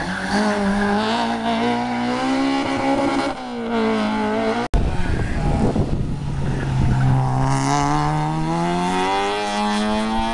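Hill-climb race car engine at full throttle, its pitch climbing steadily and dropping sharply at a gear change. The sound breaks off abruptly near the middle, then an engine note starts low and climbs again through the revs.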